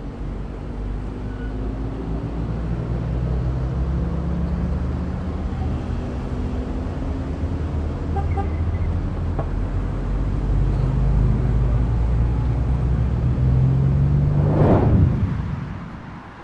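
Heavy city traffic: a steady wash of car and bus engines and tyres, with engine tones drifting up and down. It grows louder toward the end, peaks in a brief rushing swell, and then fades out.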